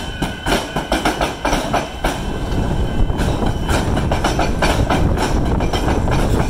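Melbourne suburban electric train rolling slowly over a tram square, its steel wheels clattering and knocking irregularly as they cross the gaps where the tram rails cut through the railway tracks, over a steady rumble of running gear.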